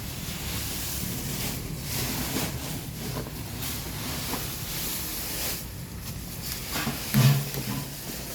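Wind buffeting the microphone, a steady rumble with gusty swells. About seven seconds in there is one short, low-pitched sound, the loudest moment.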